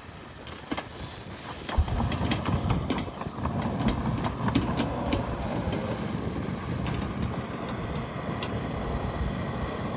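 Side-by-side utility vehicle driving over rough farm ground: a low running rumble that gets louder about two seconds in, with frequent rattles and knocks from the body jolting.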